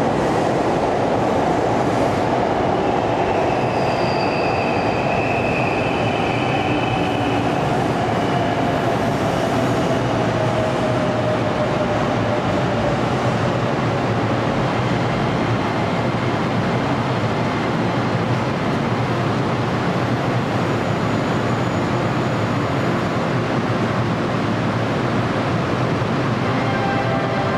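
Steady loud rumble and hum of a JR 103 series electric train standing at an underground platform. A whining tone slowly falls in pitch over the first half, and a few brief high squeals come a few seconds in.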